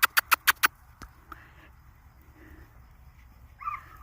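A quick run of about five sharp clicks as a person calls Belgian Malinois puppies. Near the end comes one short, high puppy whimper.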